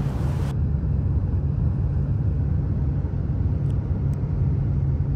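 Steady low rumble of a car driving along a highway, heard from inside the cabin: road and engine noise.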